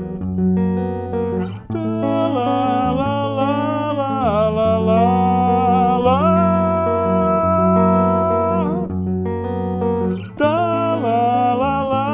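Archtop hollow-body guitar playing between verses of a slow song. A wordless sung melody enters about two seconds in over the chords, holding long notes and gliding between them, and starts again near the end.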